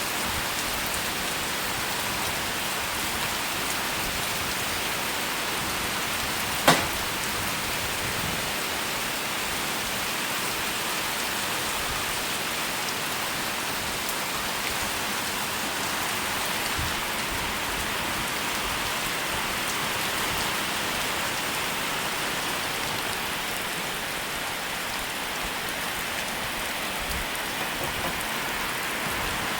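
Steady rain falling on surfaces, an even hiss. About a third of the way in, a single sharp click or knock stands out above the rain.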